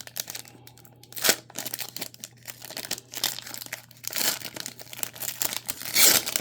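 Trading-card pack wrappers crinkling and cards being handled, in irregular rustles with a sharp louder crinkle about a second in and another near the end.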